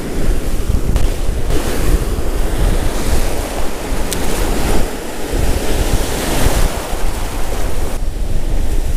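Ocean surf breaking and washing in around the feet, with heavy wind buffeting the microphone.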